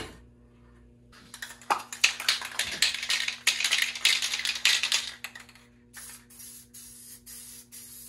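Aerosol spray paint can spraying. A continuous hiss starts about a second in and lasts some four seconds, then gives way to short spurts, about two or three a second.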